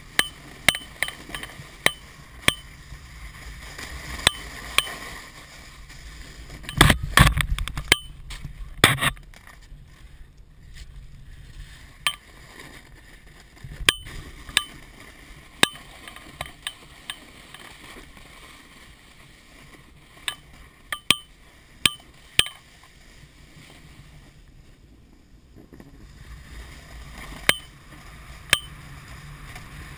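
A board sliding over snow on a freeride descent: a steady hiss of snow and wind, with sharp irregular clicks and knocks throughout and a cluster of heavier bumps about seven to nine seconds in.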